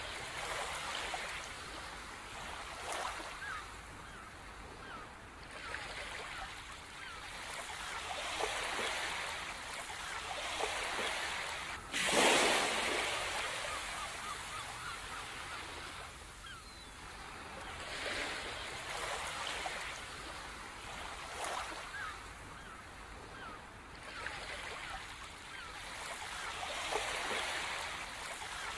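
Ocean waves washing ashore in slow swells every few seconds, with one louder wave breaking suddenly about twelve seconds in; faint bird calls sound over the surf.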